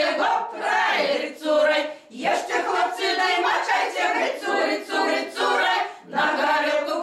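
A women's folk ensemble singing a Belarusian folk song a cappella, in full chest voices. Their phrases break for a breath about two seconds in and again about six seconds in.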